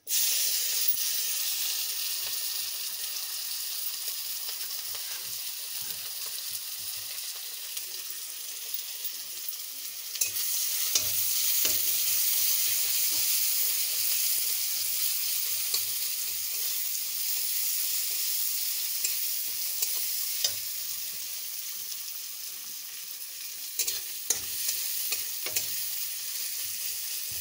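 Sliced onion and ginger sizzling as they fry in a little hot oil in a kadai. The sizzle starts suddenly as they go in and grows louder about ten seconds in, with a metal spatula scraping and clicking against the pan now and then.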